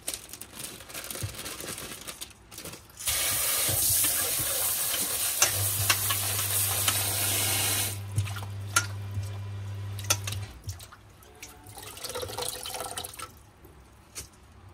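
A kitchen tap runs hard into a stainless steel bowl of young tamarind shoots for about five seconds, with a steady low hum under it near the end. Before and after, hands rustle a plastic bag and swish and scoop the leaves in the water with small splashes and clicks.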